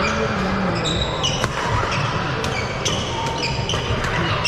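Badminton doubles rally. Rackets strike the shuttlecock several times in sharp cracks, and shoes give short squeaks on the wooden court floor, over the steady murmur of a seated crowd.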